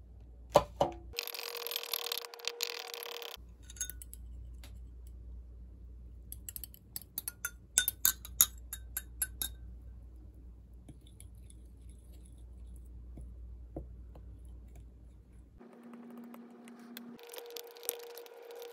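Clinks and clicks of small hard objects being handled, with a dense run of sharp clinks about seven to nine seconds in. A short stretch of steady hissing noise comes near the start.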